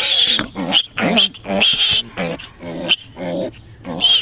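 A piglet being held in a man's arms squealing and grunting in a rapid run of short, loud calls, about three a second, some low and some shrill.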